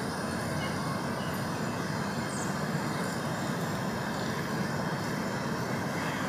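Steady low rumble of outdoor background noise, even in level throughout, with no distinct events.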